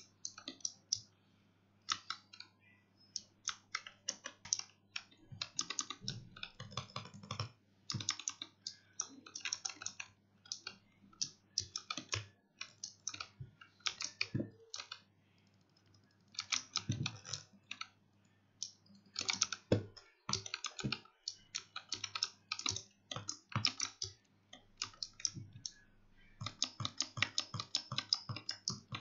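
Razer Huntsman Mini optical-switch keyboard clacking under rapid gaming keypresses. The keystrokes come in irregular flurries broken by brief pauses.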